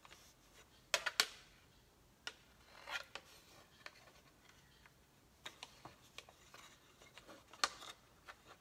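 Thin wire being handled and bent against a wooden tray: scattered sharp clicks and short scrapes, the loudest pair about a second in.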